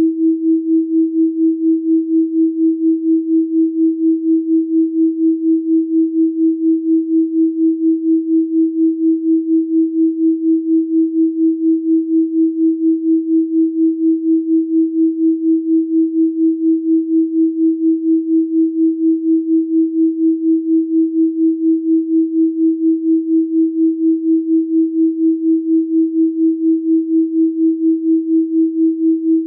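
Synthesized 324 Hz pure sine tone, held at one pitch, pulsing in loudness at a rapid, even rate.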